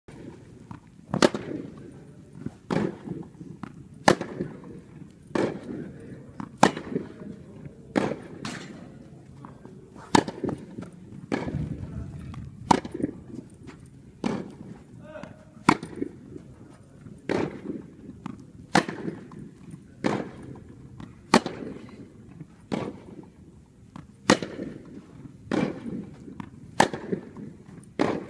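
Tennis balls struck by rackets and bouncing on an indoor court during a steady rally, a sharp pop about every second and a half, each ringing briefly in the hall.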